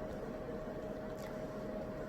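Steady background hum and hiss with a constant mid-pitched tone, like an appliance running in a small room, and a faint tick about a second in.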